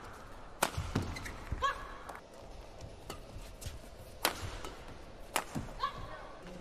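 Badminton rackets striking a shuttlecock in a fast rally: a handful of sharp, cracking hits, the last two in quick succession about five seconds in. Short squeaks of shoes on the court floor come between the hits.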